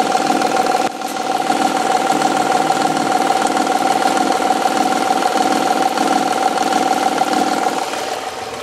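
Honda V6 engine idling with a steady, rapid knocking from a faulty timing belt tensioner, which seems to come from the rear cylinder head.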